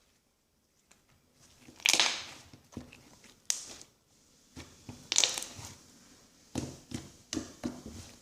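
Homemade glue slime being squished and stretched by hand, giving a series of irregular crackly, squelching bursts about a second apart after a brief quiet start.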